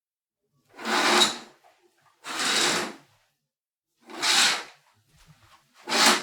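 Window curtain being drawn open and shut, four quick swishes each under a second long, about one every one and a half seconds.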